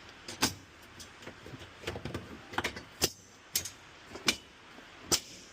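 Packout mounting plate being worked down over four loose bolts into its holes: a series of sharp, irregular knocks and clicks, about five of them loud, until the plate seats.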